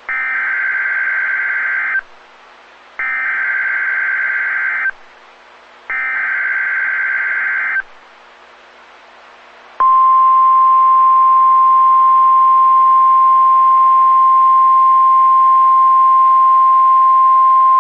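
NOAA Weather Radio Emergency Alert System activation: three bursts of the SAME digital header, each about two seconds long with a second of pause between them, then about ten seconds in, the steady 1050 Hz weather radio alert tone starts and holds. The header and tone open an alert broadcast, here a flood watch.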